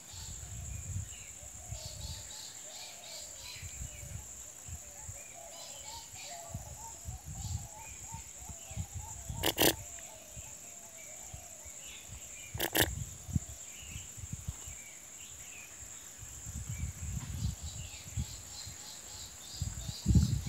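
Forest ambience: a steady high-pitched insect drone with chirping bird calls over it, and two sharp clicks about three seconds apart near the middle.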